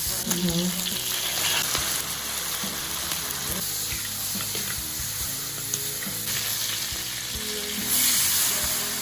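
Pork ribs sizzling in hot oil as they are stir-fried until they give up their fat, with short clicks of the spatula against the pan. The sizzle grows louder near the end.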